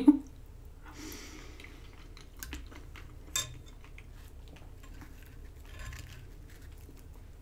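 Soft chewing of a mouthful of pasta with scattered small clicks, and a metal fork set down against a glass dish with a sharp clink about three and a half seconds in.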